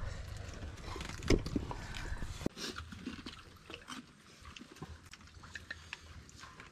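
Eating sounds: noodles slurped and chewed, with small clicks of spoons and fingers against bowls. There is one sharp knock about a second in, and the sound turns quieter after about two and a half seconds.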